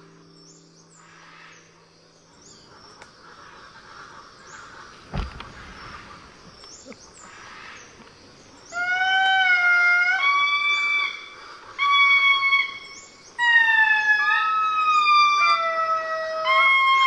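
Indri song: loud, long wailing notes, each held about a second and bending in pitch, in phrases that start about nine seconds in. Before that there is only a faint forest background with repeated high chirps, a single thump about five seconds in, and music fading out at the very start.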